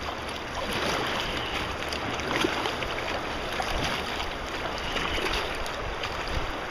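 Fast tidal current churning and rushing around a kayak as it is paddled through rough, swirling water.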